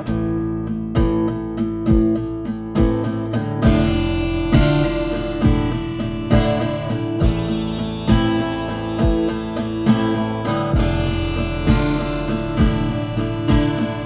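Music: an acoustic guitar strummed to a steady beat, with no singing.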